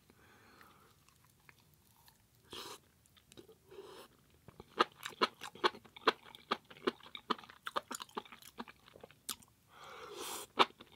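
A person chewing food close to the microphone. It starts quietly with a few short rushes of noise, then from about five seconds in comes a quick run of crisp crunching clicks, and another short rush of noise near the end.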